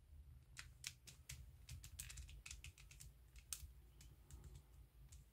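Faint, sharp plastic clicks and clacks of a stickerless Mirror cube as it is gripped and its middle layer is turned, an irregular run of small clicks with a louder click about three and a half seconds in.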